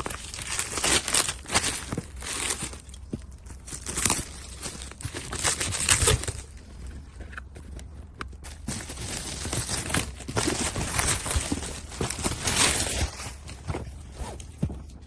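Packaging being handled and opened: cardboard and plastic wrapping crinkling, tearing and scraping in irregular bursts, with a few sharp knocks.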